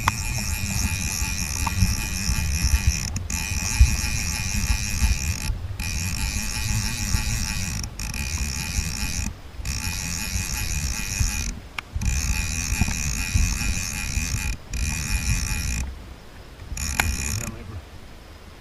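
Fishing reel's ratchet drag buzzing as a hooked salmon runs and takes line, in about eight spells of one to three seconds with short breaks between them. A low rumble runs beneath it.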